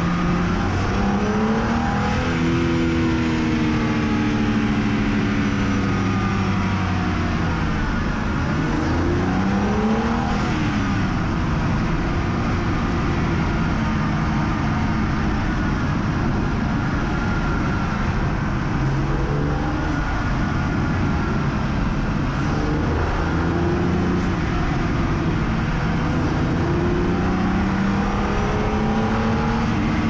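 BMW N52B30 three-litre naturally aspirated straight-six in an E86 Z4 Coupe 3.0si, driven hard on the road, its pitch rising as it revs and dropping back at each gear change, over and over.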